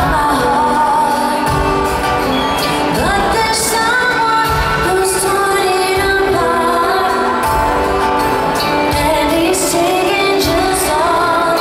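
Live pop-rock band playing a slow song: guitars and drums with a woman singing the lead vocal.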